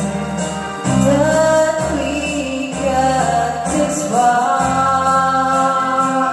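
Karaoke: a woman singing into a microphone over a backing track, holding long sung notes.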